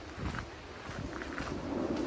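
Footsteps on a wooden boardwalk: a few irregular knocks over a steady outdoor background.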